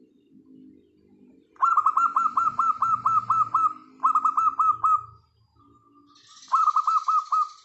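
Zebra doves cooing softly and low, broken by three loud runs of quick, sharp chirps, about eight a second, starting about one and a half seconds in, around four seconds and near the end.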